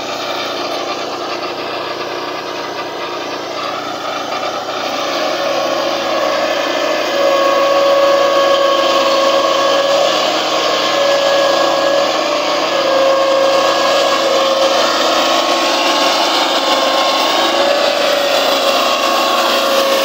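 Engine of a Peterson circular-blade portable sawmill running steadily while the blade cuts along a log. About seven seconds in the sound grows louder and a steady whine comes in, holding with brief dips.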